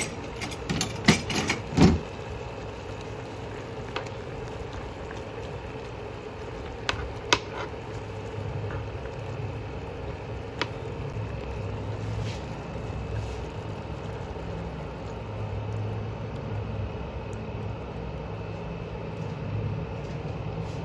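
Pot of instant ramen simmering on an induction cooktop: a steady low bubbling hum. A few sharp clinks come in the first two seconds and another about seven seconds in.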